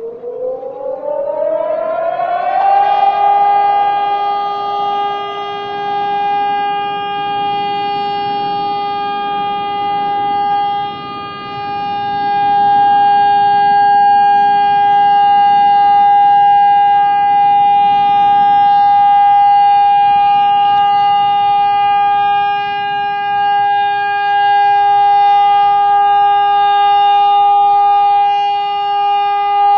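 Civil-defence air-raid siren sounding for a scheduled test: it winds up in pitch over the first two or three seconds, then holds one steady, loud tone, with a brief dip in loudness around the middle.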